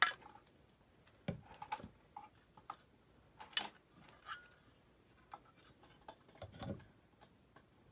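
Scattered light clicks and knocks of a metal shelf bracket and a cordless drill being handled against drywall as the drill's bit is set to the bracket's screw hole. A sharp click right at the start is the loudest; the drill motor does not run.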